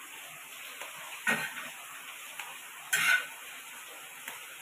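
Two short clatters about a second and a half apart as a metal spatula sets roasted puris down on a metal plate, over a steady faint hiss.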